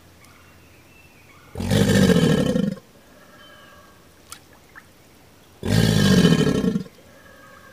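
Alligator bellowing: two loud, low, rough bellows of about a second each, some four seconds apart.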